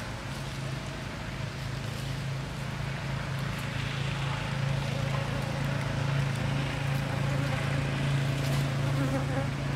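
A steady low drone that grows a little louder after the first couple of seconds.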